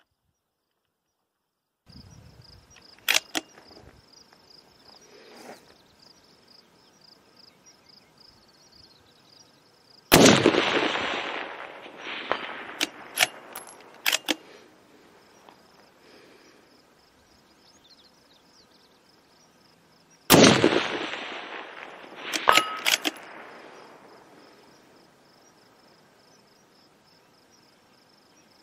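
Two shots from a scoped, muzzle-braked bolt-action rifle, about ten seconds apart, each followed by a long rolling echo that dies away over several seconds. A couple of seconds after each shot come a few sharp metallic clicks of the bolt being worked. A faint steady high-pitched hum sits in the background.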